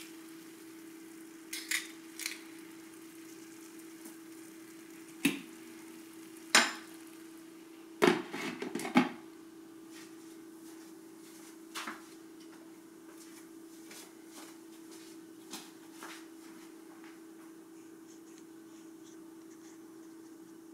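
Glass pan lid set down onto an enameled cast iron skillet, clattering briefly about eight seconds in, among a few lighter clicks and knocks of kitchenware. A steady hum runs underneath.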